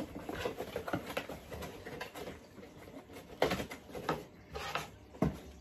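Cardboard box and packaging being handled on a table: scattered light rustles and taps, with a few sharper knocks about three and a half, four and five seconds in.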